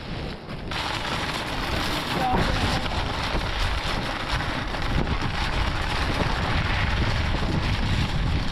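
Blizzard wind buffeting the microphone: a steady rush of noise with a heavy low rumble, growing fuller about a second in.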